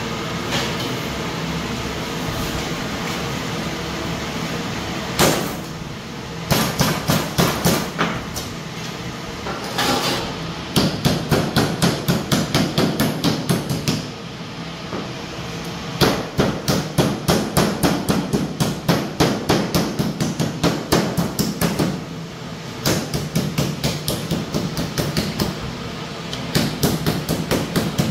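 Meat mallet pounding slices of raw meat on a plastic chopping board, in quick runs of about four blows a second with short pauses between, over a steady background hum.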